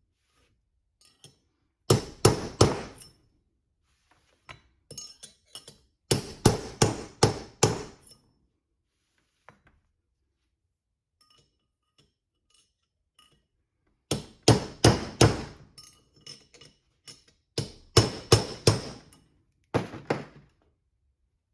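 Hammer blows on steel knocking a bearing race out of the Toyota 8-inch differential, in about five flurries of quick, ringing metallic strikes separated by short pauses. The race is creeping out, only slowly.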